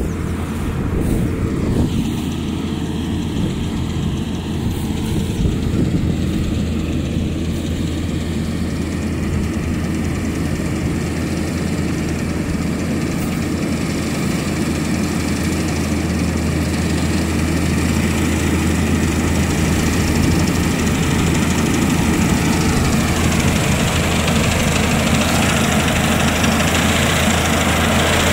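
Kubota rice combine harvester running while it cuts rice: a steady engine drone that grows louder and fuller in the last few seconds.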